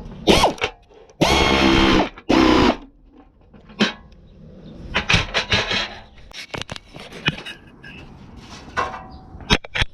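Work on car bumper hardware: clinks and knocks of metal bolts, brackets and tools, with two short loud bursts of a power tool running, about a second and two seconds in.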